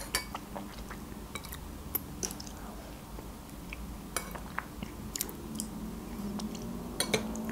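Close-miked eating sounds: quiet chewing and mouth noises with scattered sharp clicks, and a metal spoon dipped in a bowl of lentil soup and raised to the mouth.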